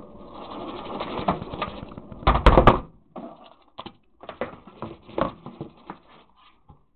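Close handling noise: rustling that builds over the first two seconds, a loud clatter about two and a half seconds in, then scattered knocks and clicks as objects such as plastic trays are moved right by the microphone.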